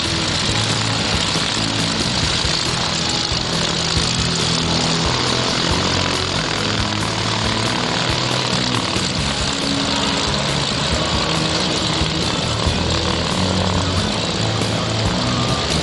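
Light propeller aircraft running their piston engines on the ground while taxiing, a steady, even engine-and-propeller noise.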